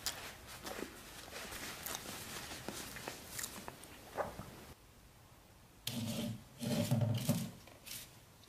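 Fingers scratching and rubbing the woven cane of a wicker basket, a dry, crackly rasp made of small clicks. About two-thirds of the way in the basket is picked up and handled, with a louder, low rumbling noise for a second or two.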